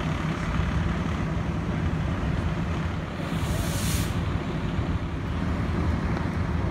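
Steady low rumble of vehicle engines and road traffic, with a short hiss about three seconds in.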